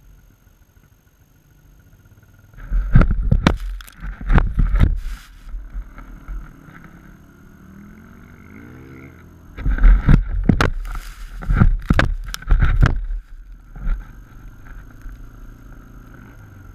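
Sandboard scraping and plowing through loose desert sand while being towed, with sand and wind rushing over the board-mounted camera. It comes in two loud spells of rumbling and crackling scrapes, about three seconds in and again about ten seconds in.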